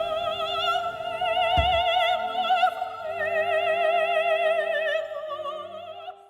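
Operatic singing: a high voice holding long notes with wide vibrato over sustained orchestral accompaniment, with a single low hit about a second and a half in. It fades out at the end.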